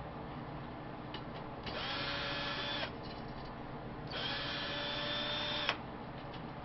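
Power drill run twice to take out a screw, first for about a second, then for about a second and a half; each time the motor spins up quickly and holds a steady whine.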